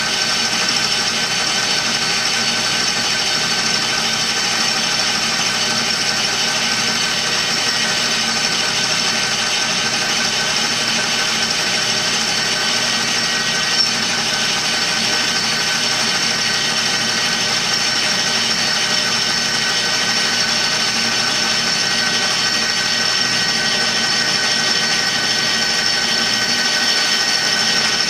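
Metal lathe running steadily while turning a metal tube, making an even mechanical hum with several high steady tones from its drive.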